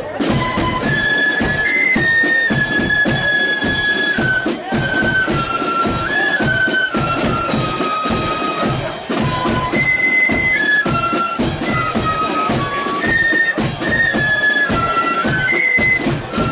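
Marching flute band playing a tune: a high flute melody in unison over a steady beat of bass and snare drums.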